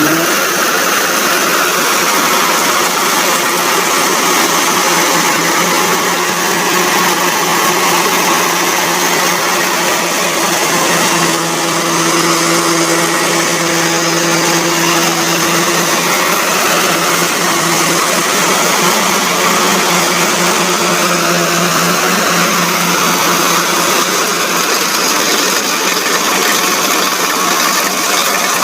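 Kubota DC70 combine harvester running steadily at working speed, a loud, even machine drone that holds without a break.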